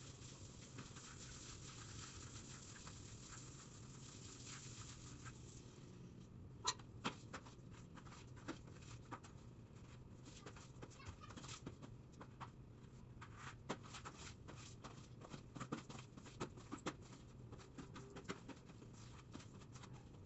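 Broom scrubbing a wet tiled floor, faint: a steady swish for about the first six seconds, then scattered scrapes and taps of the bristles on the tile.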